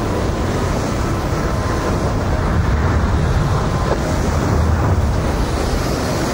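Strong wind blowing across a camcorder microphone: a steady, rumbling rush with no distinct events.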